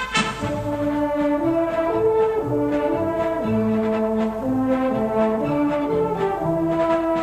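Military brass band playing a march: horns and trombones carry a melody of held notes over a light steady beat.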